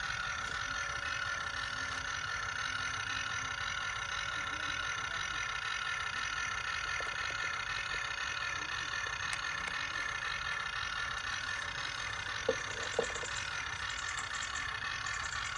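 Radio-controlled model dump truck running with a steady high-pitched whine. Two brief knocks come about twelve and a half and thirteen seconds in.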